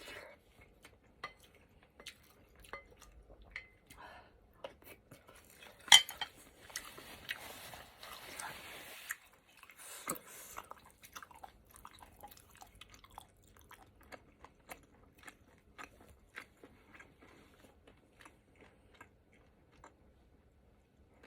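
A person chewing and eating close up, with many small mouth clicks and a spoon clinking against the bowl now and then. A sharp loud clink about six seconds in is followed by a few seconds of hissing noise, with another louder moment near ten seconds.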